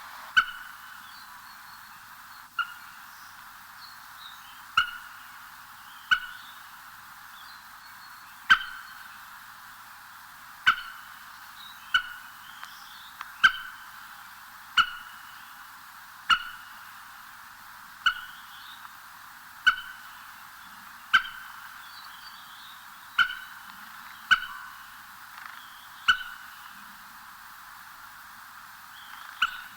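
Outdoor animal calls: a short, sharp call repeated about every one and a half seconds, with faint higher chirps between them, over a steady background chorus.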